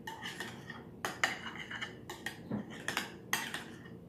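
Metal utensil stirring a thick mashed-egg and mayonnaise spread in a glass mixing bowl: repeated irregular clinks and scrapes against the bowl, about two or three a second.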